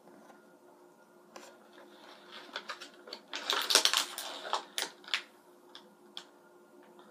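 Small plastic toy packet crinkling and crackling as it is handled and pulled open by hand, a scatter of clicks and crackles with the loudest rustle about three and a half to four seconds in.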